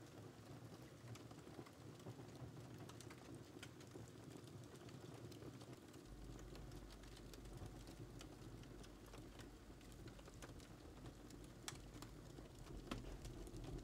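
Near silence: quiet room tone with faint, irregular small clicks.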